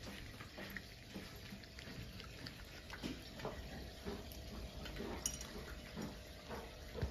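Several house cats eating from bowls: an irregular patter of soft, wet chewing and licking clicks.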